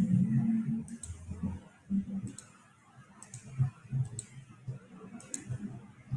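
About half a dozen sharp, scattered computer clicks, irregularly spaced, as the screen share is stopped and switched.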